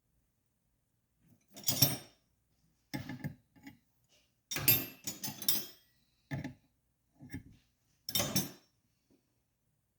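Metal hand tools clinking and rattling in about eight short, separate bursts, as wrenches are worked on a flywheel puller threaded into the flywheel.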